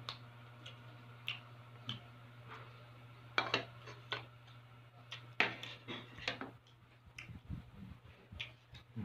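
Eating sounds: a spoon and fork clicking and tapping irregularly against plastic food containers and a bowl, with chewing.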